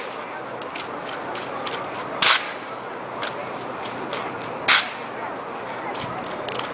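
Armed drill team's drill rifles being struck and handled in unison: two sharp cracks about two and a half seconds apart, with lighter taps and clicks between.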